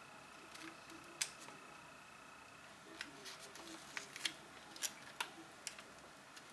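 Light, scattered clicks and taps of small hard parts and plastic packaging being handled on a desk. The clicks come more often in the second half. A faint steady high tone fades out about two and a half seconds in.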